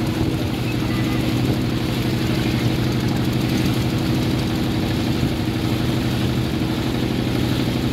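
Motorboat engine running steadily at an even, unchanging pitch.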